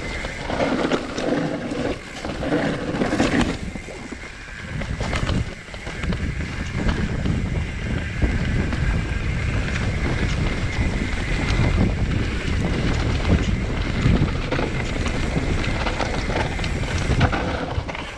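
YT Capra enduro mountain bike ridden fast down a rough dirt trail: a continuous rumble and rattle of tyres and frame over roots and ground, with wind buffeting the action-camera microphone.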